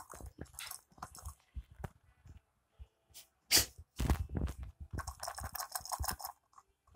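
Irregular soft knocks and rustling as a rubber dumbbell treat toy for dogs is handled and bumped on a carpet, with one louder knock about halfway through.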